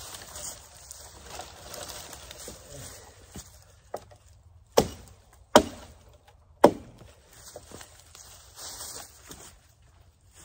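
Three sharp cracks of wood about a second apart, from limbs of a felled tree being chopped or broken for forked stakes. Before and after them, footsteps and rustling through dry leaves, pine straw and brush.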